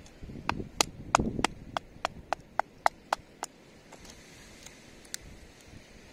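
Batoning with a Morakniv Garberg: a wooden baton knocking on the knife's spine to split wood, in a quick run of about eleven sharp knocks, roughly three a second, each with a short metallic ring. Two lighter knocks follow near the end.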